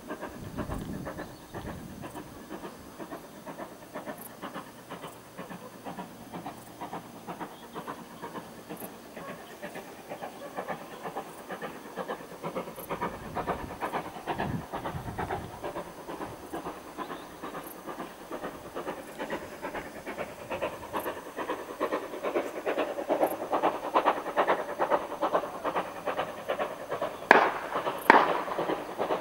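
Steam locomotive working under steam, its exhaust beats coming in a fast, even rhythm and growing steadily louder as it approaches. Two sharp, loud cracks stand out near the end.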